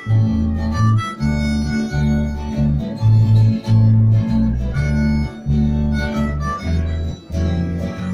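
Instrumental break in a song: harmonica playing the melody over guitar, with a line of low bass notes underneath.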